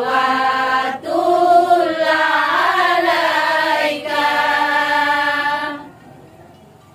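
Women's voices singing an Islamic sholawat in unison without instruments, in long, drawn-out notes that bend and waver, in three phrases, stopping about six seconds in.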